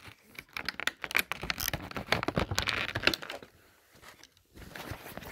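Hands handling clear plastic toy packaging: quick irregular clicks, taps and crinkles, with a short pause a little before four seconds in before the clicking starts again.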